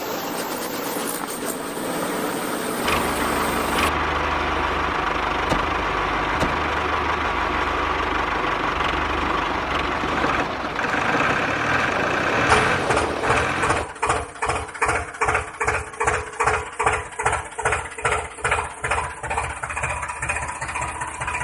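Tractor engine running steadily. From about two-thirds of the way in it chugs in an even beat of about two pulses a second.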